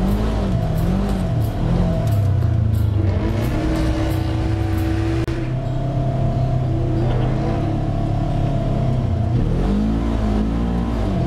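Polaris RZR side-by-side's engine heard from aboard while it drives a muddy dirt trail. The revs rise and fall at the start, hold fairly steady through the middle, and dip and climb again near the end.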